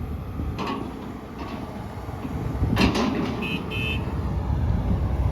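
Case CX240B excavator's Isuzu diesel engine running, a steady low rumble, with a few brief knocks over it.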